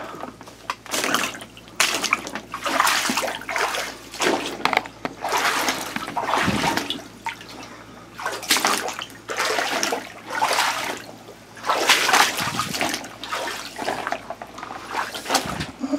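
A person crawling through a wet crawlspace: plastic sheeting crinkling and shallow water sloshing with each movement, in irregular bursts of about a second with short pauses between.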